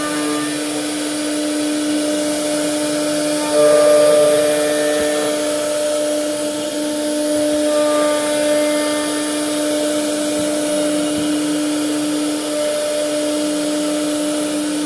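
CNC router spindle running at a steady pitch while cutting wood, with a constant hiss of the cut; it grows louder for a moment about three and a half seconds in.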